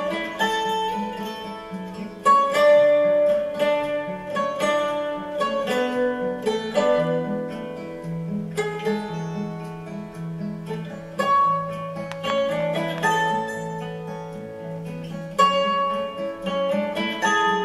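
Background music: a plucked-string melody of quick notes over a lower line of longer held notes.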